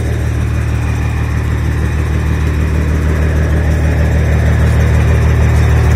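An engine idling steadily, a deep even hum with no change in speed.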